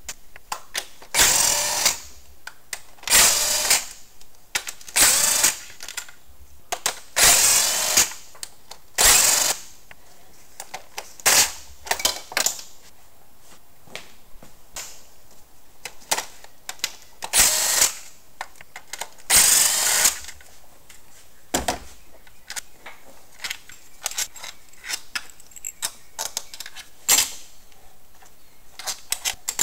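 Handheld power driver spinning out the valve cover bolts on a Ford Zetec 2.0 engine, in a series of short runs of about a second each. Smaller clicks and knocks follow in the later part.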